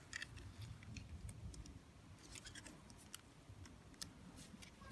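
Faint scattered clicks and rustling of hands handling a stroller's harness straps and plastic buckle pieces.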